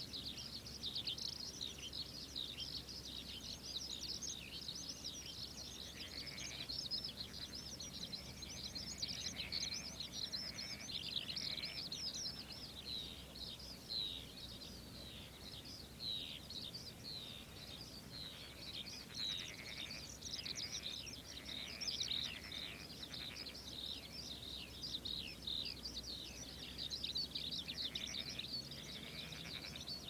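A dense, unbroken chorus of short, high chirping calls, with lower calls coming and going, from the birds and frogs of a flooded rice paddy.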